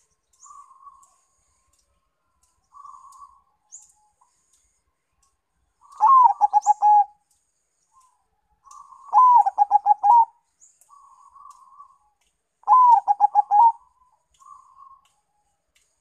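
Zebra dove (perkutut), a Bangkok × local crossbred bird, singing its cooing song: three loud phrases, each a higher opening note followed by a quick run of about five short rolling coos, with softer short coos between them. Faint high chirps sound in the background.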